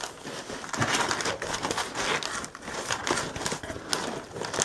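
Hands struggling to open a shipping package: a busy run of crinkling, scraping and small clicks from the packaging.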